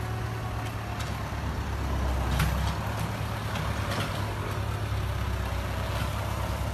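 Farm tractor's diesel engine running steadily while it levels dirt, a little louder about two seconds in, with a few sharp knocks.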